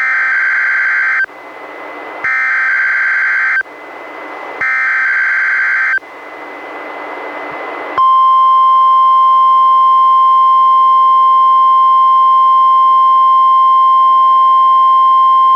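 Three short bursts of NOAA Weather Radio SAME header data, a rapid two-tone warbling screech, about a second apart with radio hiss between. About eight seconds in, the 1050 Hz warning alarm tone starts: one steady tone. Together they open a required weekly test of weather-radio receivers.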